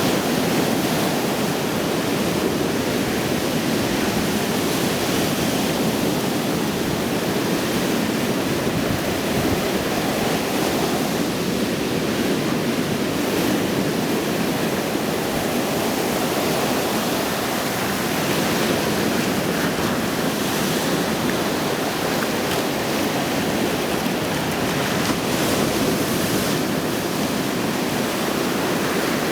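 Stormy Black Sea surf: rough waves breaking continuously in a steady rushing wash.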